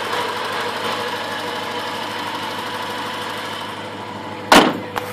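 HSV VS Clubsport's V8 engine idling steadily, heard from the engine bay. A loud thump about four and a half seconds in, with a smaller click just after.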